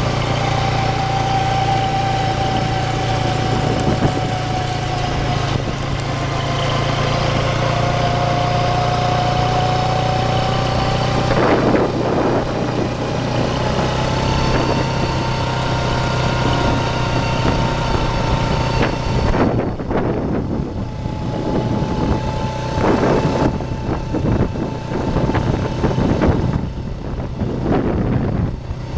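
Vehicle engine running while driving along a gravel dirt road: a steady low hum with a whine that drifts up and down in pitch. In the last third, irregular jolts and rattles from the rough road join in.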